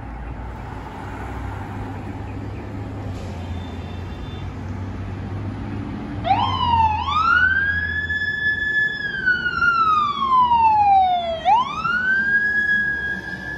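Fire truck siren wailing. It starts about six seconds in and rises quickly to a high, held tone. It then slides slowly down over a few seconds and winds back up near the end. Before it comes in there is a low rumble of truck engine and street traffic.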